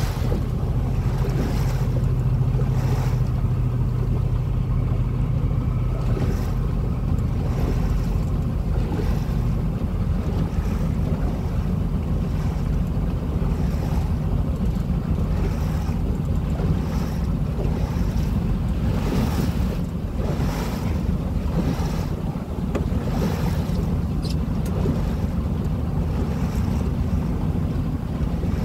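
A small motor pilot boat under way: its engine drones steadily underneath while water rushes along the hull, with repeated whooshes of spray and bow splash every second or two and wind buffeting the microphone.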